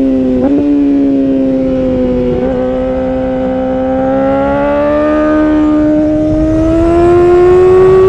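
Yamaha R6's inline-four engine through an Akrapovic Evolution Racing exhaust, running at high revs under way. There is a brief break in the note about half a second in, then the pitch holds steady before rising over the last few seconds as the bike accelerates.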